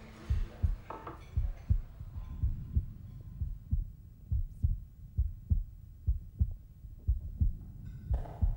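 Heartbeat sound effect: low, muffled double thumps in a steady lub-dub rhythm, about one pair a second.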